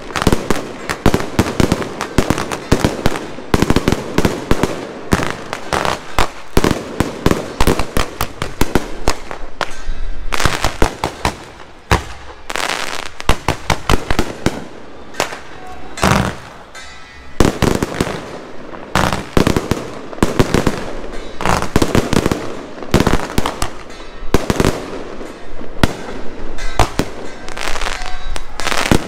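Fireworks display: rapid, overlapping bangs and crackling from aerial shells bursting and comets launching, going on without a break apart from a couple of short lulls midway.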